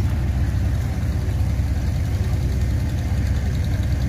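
A steady, low engine drone running at an even pace throughout, with no change in speed.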